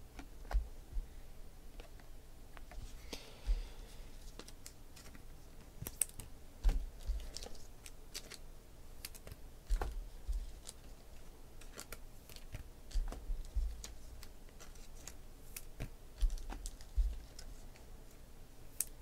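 Trading cards being handled and sorted by hand: scattered light clicks and taps as cards are flicked through and set down, with a dull thump every few seconds.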